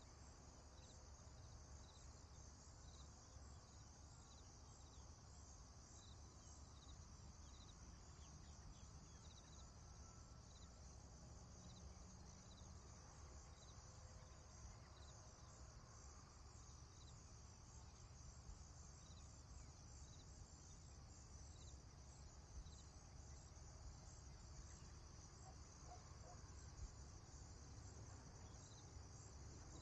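Faint, steady high-pitched chorus of insects over a low background rumble, with a short chirp repeating about every three-quarters of a second through the first several seconds.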